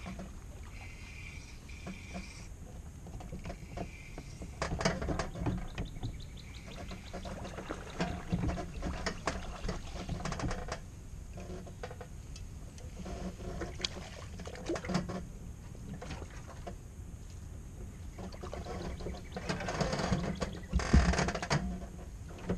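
Handling noise from an angler fighting a bass on a spinning rod and landing it into the boat: scattered clicks and rustles from the reel and clothing, with a loud knock near the end.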